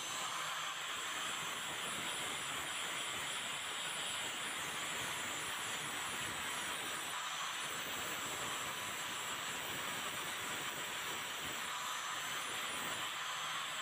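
Angle grinder running continuously with its abrasive disc pressed against a rusty steel scissor blade, grinding off rust: a steady grinding hiss with a high, even motor whine.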